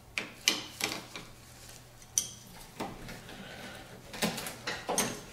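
Scattered light clicks and clinks of pliers and a hooked trim-removal tool against a rubber transmission cooler hose and its metal fitting as the hose is twisted loose from its barbed fitting. The clicks come more often near the end.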